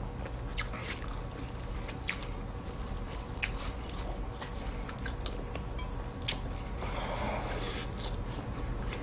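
Flaky, syrup-soaked butterfly pie (puff pastry) being pulled apart by hand and eaten: scattered light crackles from the pastry, then close-up chewing near the end.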